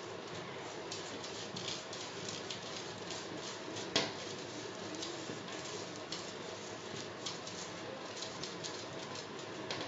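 Many small irregular clicks and ticks over a steady hiss, with one sharper click about four seconds in.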